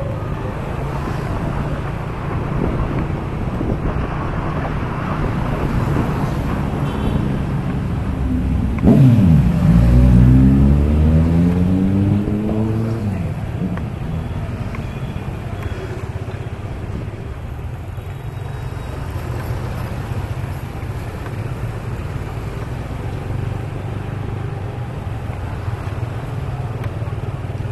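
Riding on a motorbike through city traffic: steady engine hum and road noise. About nine seconds in, an engine close by suddenly gets louder, dips in pitch, then climbs steadily in pitch for about four seconds as it accelerates.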